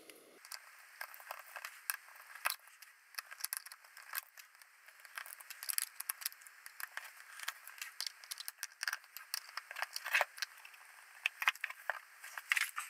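Screwdriver and small metal parts: an irregular string of clicks, scrapes and rattles as screws are undone from a metal housing, with a few louder knocks.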